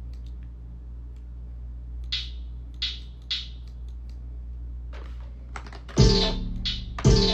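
Trap beat playing: a long held 808 bass note with three short, sharp hits over it, then the full beat comes back in with loud drum hits about six seconds in.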